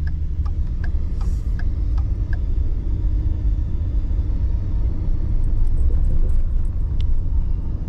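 Steady low rumble of a vehicle driving along a road, heard inside its cabin: engine and tyre noise, with a few faint ticks above it.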